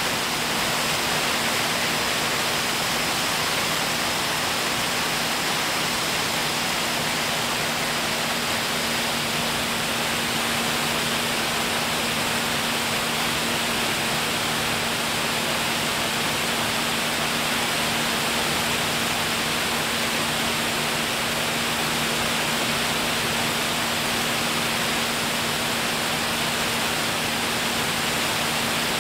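Small aircraft in flight: a steady engine hum under a constant rush of air noise, unchanging throughout.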